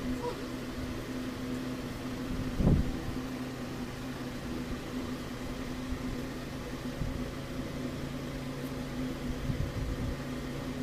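Steady hum of an electric fan running, with one soft thump about two and a half seconds in.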